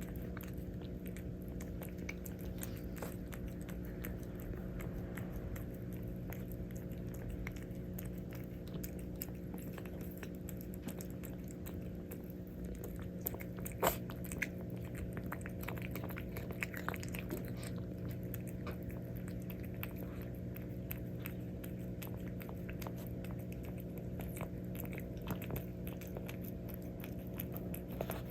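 A calico cat eating, with many small irregular crunching and chewing clicks and one sharper click about halfway through. A steady low hum runs underneath.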